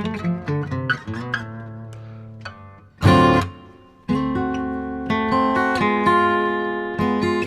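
Acoustic guitar music: picked notes that fade out, a loud strummed chord about three seconds in, then ringing chords with picked notes from about four seconds in.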